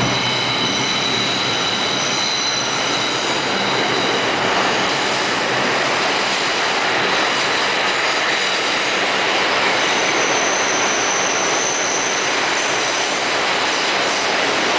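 R142 subway train running out of a station along curved track, a steady loud rumble and rush of wheels and cars. Over it a high, level wheel squeal sounds in the first few seconds, and another, higher one from about ten to thirteen seconds in.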